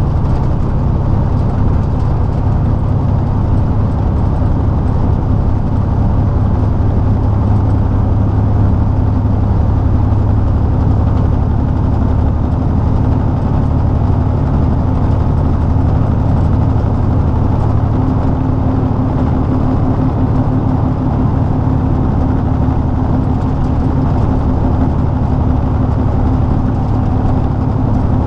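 Heavy truck's diesel engine running steadily while driving, heard from inside the cab as a continuous low drone.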